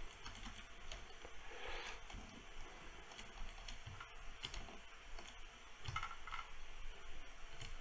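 Faint, irregular clicks and taps of a computer mouse and keyboard being worked.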